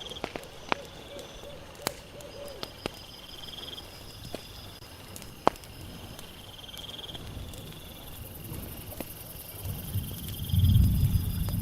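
Crickets trilling in repeated bursts while a campfire crackles with scattered sharp pops. Near the end a low forest wind rumble swells up.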